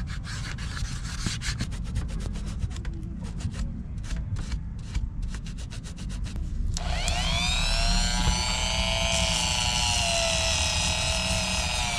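Quick back-and-forth rubbing strokes of an acetone-soaked cotton ball scrubbing old glue off a shoe sole. About seven seconds in, a Dremel rotary tool spins up with a rising whine and keeps running, its pitch wavering as it works off residue that the rubbing won't shift.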